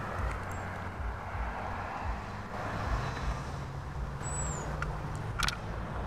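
Outdoor ambience with the low steady rumble of a distant vehicle engine. A single short, high, falling chirp comes about four seconds in, and a sharp click comes near the end.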